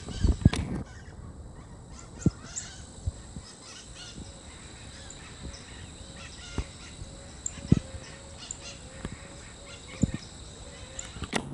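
Birds calling in scrub: scattered faint high chirps, and from about halfway a low short call repeated two or three times a second, over a faint steady high tone. Several dull thumps stand out as the loudest sounds.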